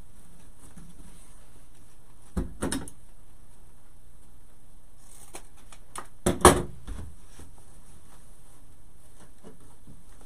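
Ribbon being handled and pressed onto a wooden bow maker on a craft table: two short clusters of knocks and rustles, about two and a half seconds in and again past the middle, the second the louder, over a steady background hiss.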